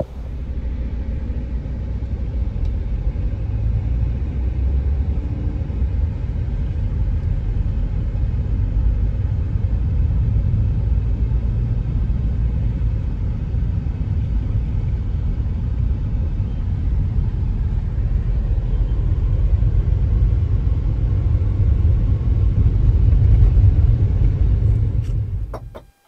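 Steady low rumble of a vehicle driving, heard from inside the cab, with no clear engine note above it. It cuts off sharply just before the end.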